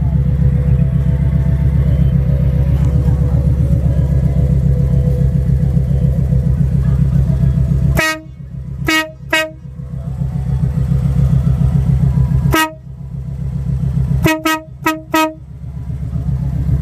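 Kawasaki Voyager motorcycle idling, then its newly fitted pair of Gampro trumpet air horns sounded in short blasts. Three blasts come about halfway through, one more a few seconds later, then four quick toots near the end.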